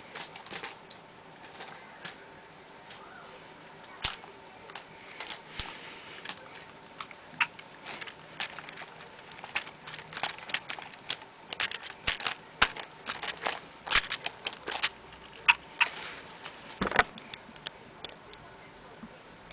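Irregular sharp clicks and knocks of hard plastic from a Lego NXT Mindstorms truck's parts clattering as it is handled and bumps across a stack of books. The clicks come thickest through the middle and die away near the end.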